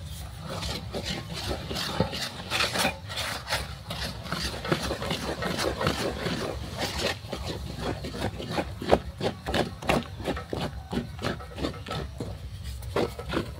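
A wooden turning stick stirring and mashing thick rice and millet fufu dough in a pot, rubbing and scraping in repeated strokes. About halfway through, the strokes settle into an even rhythm of two to three a second.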